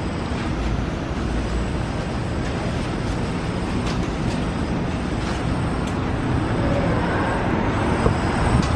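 Steady road traffic noise, a constant rumble of passing cars with no distinct events.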